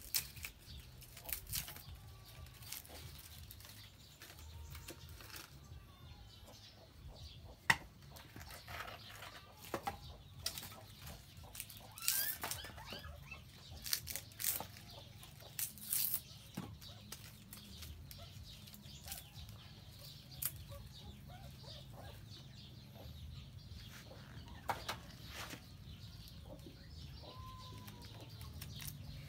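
Irregular sharp snaps, knocks and clicks as sticks and charcoal are broken and handled at a bucket charcoal stove, the loudest about 8 seconds in and a cluster a few seconds later. Chickens cluck faintly in the background.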